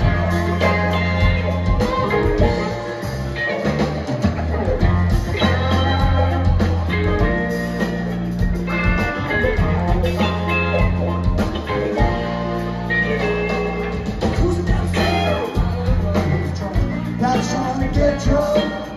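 Live blues-rock band playing: electric bass, electric guitars and drums, with a harmonica wailing over them, heard from within the audience.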